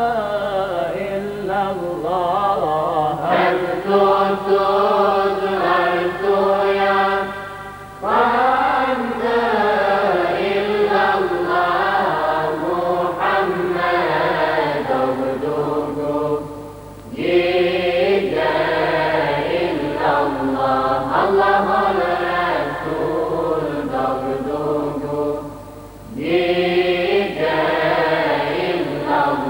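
Madrasa choir singing a Bosnian Islamic devotional hymn (ilahija) in long sung phrases, with short breaths between them about every eight or nine seconds. A steady low hum runs underneath.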